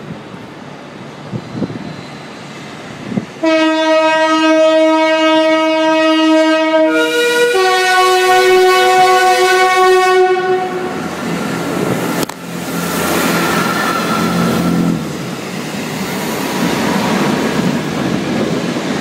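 Metropolitan Railway No. 1 steam locomotive sounding its steam whistle in one long blast of about seven seconds that changes pitch partway through. The locomotive and its coaches then run past with a steady rumble and clatter, broken by a single sharp knock.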